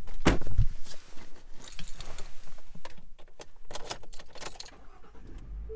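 A heavy thud about a quarter second in, then a run of light clicks and jangling keys as the driver settles in behind the wheel of a Ford van.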